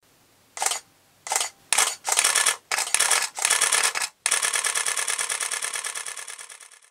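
Camera shutter firing: two single shots, then short bursts of rapid continuous shooting, and finally a long high-speed burst that fades out.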